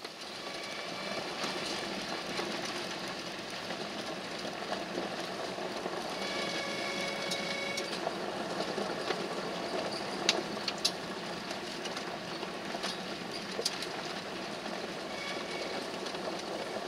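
Vehicle driving on a gravel road, heard from inside the cabin: steady tyre and road noise with light rattles, and a few short sharp clicks around the middle.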